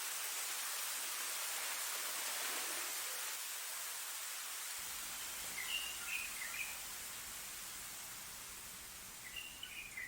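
Steady hiss of falling rain. A bird chirps a few times about halfway through and again near the end.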